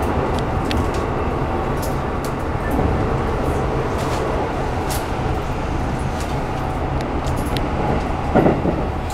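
Keikyu New 1000 series electric train running at steady speed, heard inside the passenger car: a continuous rumble of wheels on rail with a faint steady motor whine and scattered light clicks. A short thump comes a little after eight seconds in.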